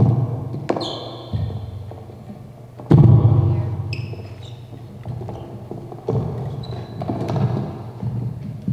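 A series of thumps and knocks, the loudest about three seconds in, one followed by a short high-pitched ring.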